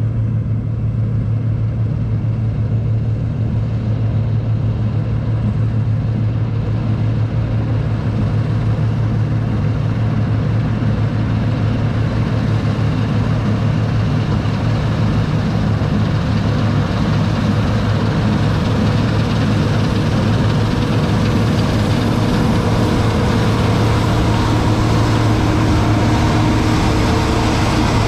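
Heavy diesel engine of a farm machine running steadily under load, with a strong low hum. Its sound slowly grows fuller and brighter through the second half.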